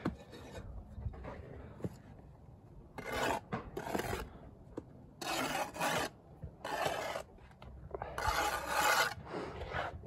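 Steel brick trowel scraping through sand-and-cement mortar and across brick faces, in a series of short strokes about a second apart, as mortar is scooped up and excess is cut off the joints.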